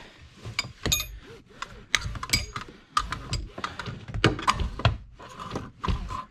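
Metal clinks and knocks, a dozen or so irregular hits, some with a brief ring: the freed lower anchor bracket and hardware of a seatbelt being handled.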